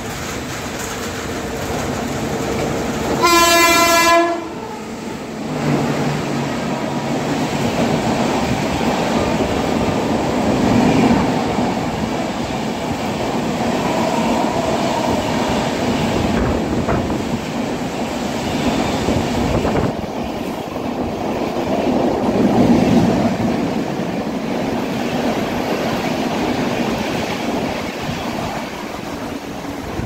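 WAP-5 electric locomotive sounds one horn blast about a second long, a few seconds in. Then the express runs through at speed, with the steady rumble and clickety-clack of its LHB coaches rolling past.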